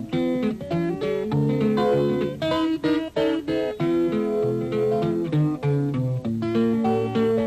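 Background music: an acoustic guitar playing a run of quick plucked notes.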